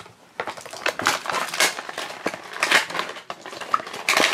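A small cardboard candy box being torn open and handled: a run of irregular crackles and crunches.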